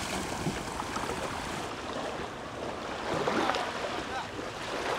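Steady wash of shallow seawater and small waves lapping at the shore.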